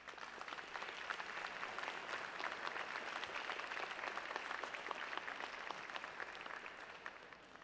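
An audience applauding, building up over the first second and tapering off near the end.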